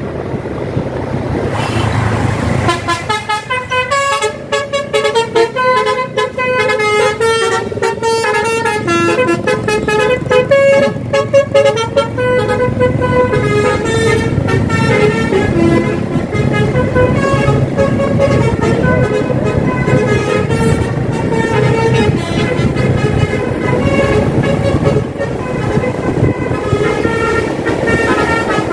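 Tour bus's basuri telolet horn playing a quick melody of short stepped notes, starting about three seconds in, over steady engine and road noise.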